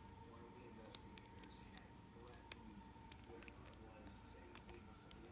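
Faint, irregular metallic clicks of a Sparrows Bogota rake being raked and rocked in the keyway of a Master Lock No. 532 padlock.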